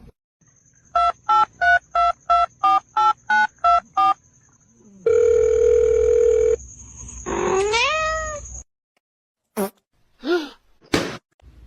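A quick run of about eleven short electronic beeps, then a steady electronic tone for about a second and a half, followed by a cat's meow that rises and falls in pitch and a few brief chirps near the end.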